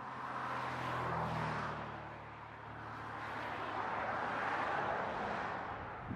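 Road traffic passing: a vehicle's tyre and engine noise swells and fades, then swells again with a second vehicle, with a low engine hum under the first.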